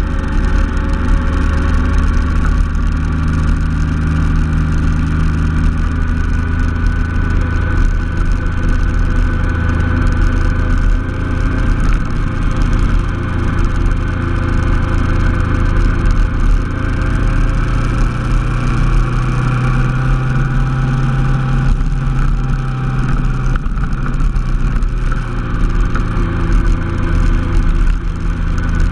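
Honda NT700V Deauville's V-twin engine running steadily while the motorcycle is ridden, under a steady rushing noise. The engine note rises somewhat about two-thirds of the way through and drops back a few seconds later.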